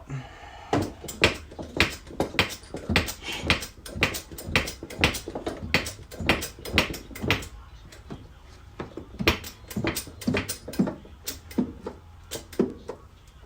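Hammer blows on a car's steel inner body structure, about two a second with a short pause a little past halfway. The hammering is knocking a pushed-in section back out while a porta power hydraulic ram holds it under tension.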